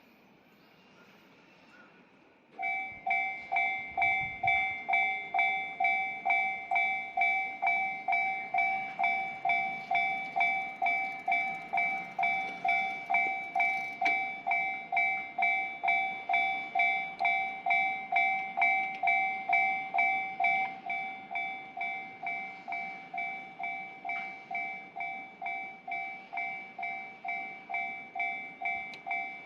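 Japanese railway level-crossing warning bell starting up about two and a half seconds in and ringing steadily at about two strikes a second, the signal that a train is approaching; it drops a little in loudness about two-thirds of the way through.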